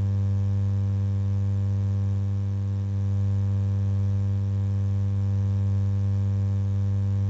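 Steady electrical hum: a strong low tone with a ladder of evenly spaced weaker overtones, level throughout.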